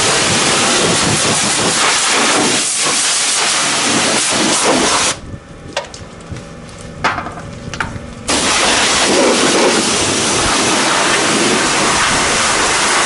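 Pressure washer lance blasting a high-pressure water jet onto the caked dirt on a tractor's rear end: a loud, steady hiss. The spray stops for about three seconds a third of the way in, with a few clicks, then starts again.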